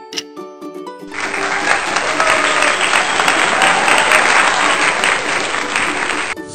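Applause sound effect, clapping that starts about a second in and cuts off suddenly about five seconds later, over light background music.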